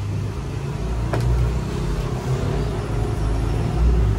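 Steady low rumble of road traffic, with a single sharp knock about a second in.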